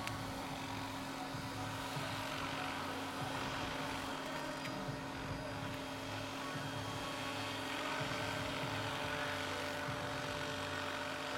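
Large-scale electric RC model helicopter (Vario AS350 Écureuil) in flight: a steady whine from the electric drive over the uneven low chop of the rotor blades.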